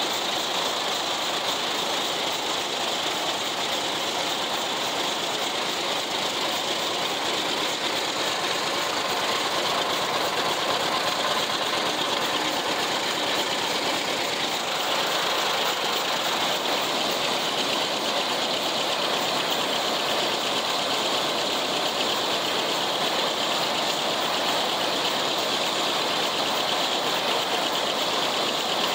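Old tractor engine running steadily under load, pulling an International 990 haybine that is cutting hay. The mower-conditioner's header mechanism rattles along with the engine, heard from the operator station.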